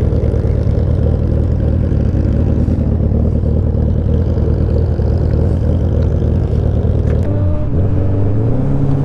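Suzuki Hayabusa's inline-four engine running at low revs as the bike rolls away. About seven seconds in, the pitch dips and then climbs as the engine picks up revs.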